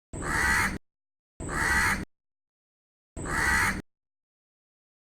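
Crow cawing three times, each caw harsh and under a second long, with dead silence between the calls.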